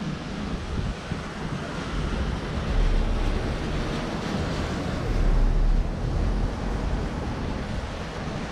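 Wind buffeting the microphone in gusts, a heavy low rumble that swells twice, over a steady outdoor hiss.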